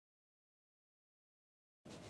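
Dead silence until, right at the end, liquid suddenly starts pouring and trickling through a sieve into a bowl.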